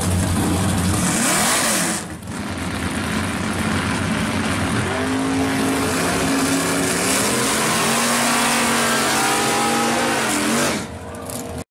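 Drag-car engines running steadily at first, then, after a short break about two seconds in, the 1968 Pontiac GTO drag car's engine revs up and down repeatedly during a burnout over the hiss of spinning rear tyres. The engine cuts off sharply near the end.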